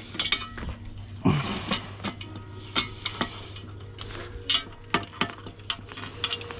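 Metal clinking and clicking as bolts on a metal bike cargo rack are tightened: an irregular string of sharp clinks from a tool against the rack and its fittings.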